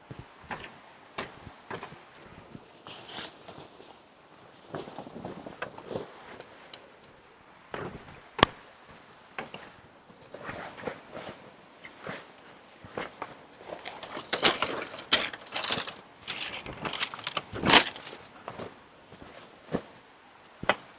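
Irregular small knocks, clicks and rustles of objects being handled, with a louder, busier stretch of rustling and clatter about two-thirds of the way through.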